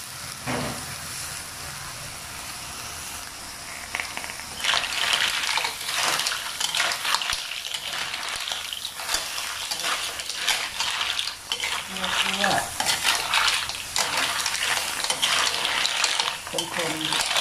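Small mussels in their shells sizzling in an aluminium wok with chili paste, a steady frying hiss at first. From about four seconds in, a metal spatula stirs and turns them, so the shells clatter and scrape against the pan over the sizzle.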